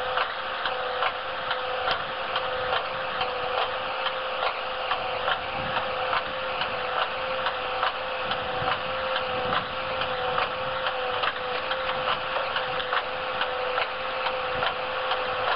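Tractor-mounted Rolmex TGR-155 hydraulic guillotine cutting head working through tree branches on its boom: a steady whine with regular clicking about twice a second.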